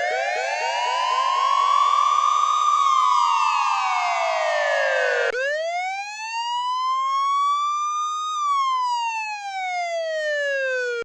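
Electronic wail siren of the fire-truck kind, rising and falling slowly twice. The first cycle is thick with many overlapping, echoing copies of itself; the second is a single clean tone.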